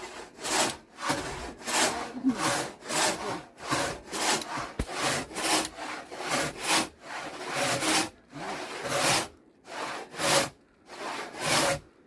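Hand saw cutting through timber in steady back-and-forth strokes, about two a second, with a couple of brief pauses late on.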